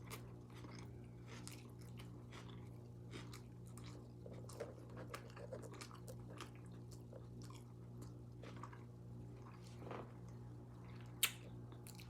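Close-miked chewing with many soft, wet lip smacks and mouth clicks, and a sharper smack near the end, over a steady low hum.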